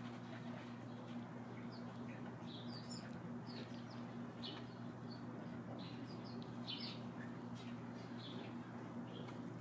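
Faint, short, high chirps of small birds, scattered and irregular, over a steady low hum.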